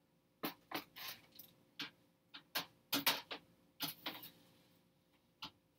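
Irregular light clicks and scrapes of a hot, crisp-crusted pizza being moved from a baking tray onto a plate.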